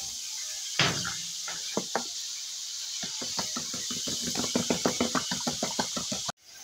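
A raw egg being beaten in a clear plastic cup: a utensil clicking and knocking against the cup, a few single strokes at first, then a quick, even beat of about six strokes a second that cuts off suddenly near the end.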